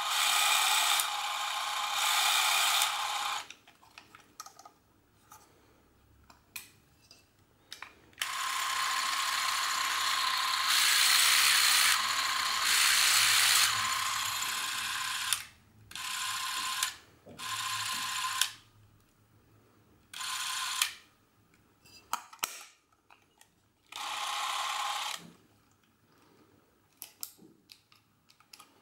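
Porst Reflex LPZ Super 8 camera's motor running in repeated bursts as the run button is pressed and let go: a steady whir that starts and stops sharply. The longest run, of about seven seconds, grows louder partway through, and sharp handling clicks fall in the gaps.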